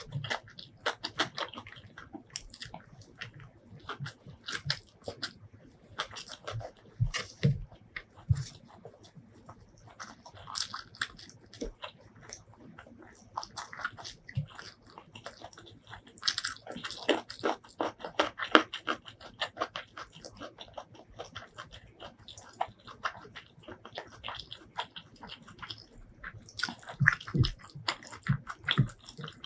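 Close-miked ASMR eating sounds: wet chewing and lip-smacking of spicy chicken biryani eaten by hand, with fingers working through the rice. A dense, irregular run of small clicks and smacks is busiest about halfway through.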